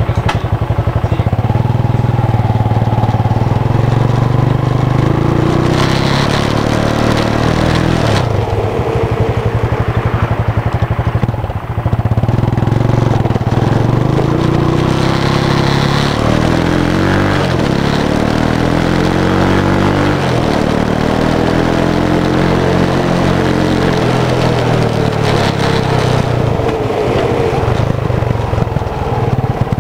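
Shineray 250 STXE quad's four-stroke engine running through a Kawasaki 636 exhaust silencer, heard close to the silencer outlet while riding. The engine revs up and down again and again, with a long rise and fall in pitch past the middle.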